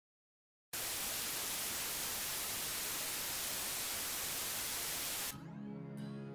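Steady static hiss like a detuned TV, starting just under a second in and cutting off abruptly about five seconds in, when soft music with steady held notes begins.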